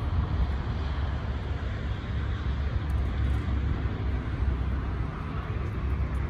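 Steady freeway traffic noise: a continuous low rumble with a hiss of tyres over it.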